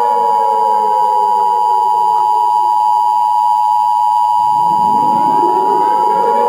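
Emergency Alert System attention signal: the steady two-tone alert tone, two pure tones sounded together, held for about eight seconds. Underneath it, a lower tone slides slowly down and then climbs back up in the second half.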